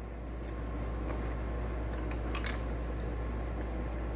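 Handling noise of a seat-cover strap being pulled and hooked onto the metal underside frame of a car seat: fabric rustling and a few faint clicks, the clearest about two and a half seconds in, over a steady low hum.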